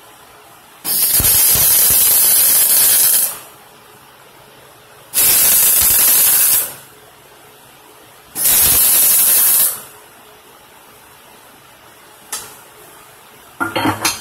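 MIG welder arc running in three separate passes, the first about two and a half seconds long and the next two about a second and a half each, every one starting and stopping abruptly on the trigger. A few short knocks near the end.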